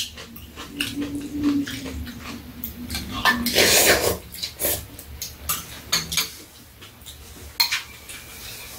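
Wooden or metal chopsticks clicking and scraping against ceramic bowls during a meal of noodles in broth. About three and a half seconds in comes a loud slurp as noodles are sucked up from the bowl.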